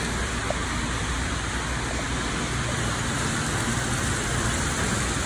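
Model trains running on the layout's track: a steady rolling rumble and rattle of the wheels and motors.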